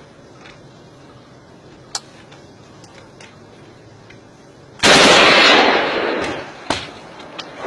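A single sharp gunshot crack about two seconds in, then a sudden, very loud burst of gunfire about five seconds in that holds for nearly a second and fades away, followed by another sharp crack.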